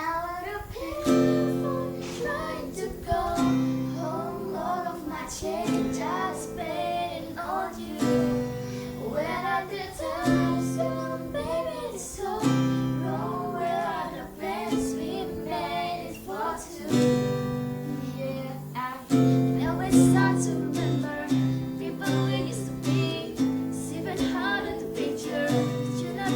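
Strummed guitar chords accompanying girls' voices singing a pop song.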